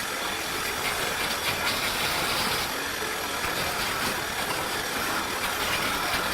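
Raitool 350 W mini wood lathe running while a chisel cuts the corners off a square timber blank: a steady, rough rushing and scraping noise that does not let up.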